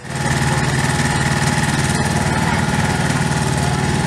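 Fire truck's engine running steadily at constant speed, driving the pump that feeds the fire hose: an unchanging low hum with a fast, even throb.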